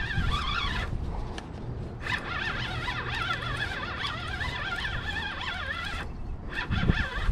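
Spinning reel working against a hooked striped bass, its whine wavering in pitch as line is cranked in, stopping briefly about a second in and again near the end. A low rumble of wind and handling noise lies underneath.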